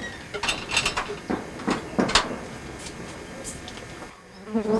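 Several sharp knocks and clicks of household handling, then a brief voice near the end.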